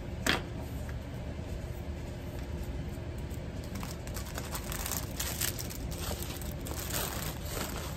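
Small plastic bags of diamond painting drills being handled, crinkling and rustling, with a sharp click about a third of a second in and denser rustling in the second half.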